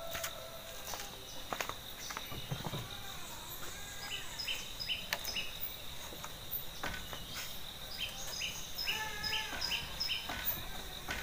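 Birds chirping, with short repeated notes and some curving calls that are strongest near the end, over a steady high insect drone. A few faint clicks come through now and then.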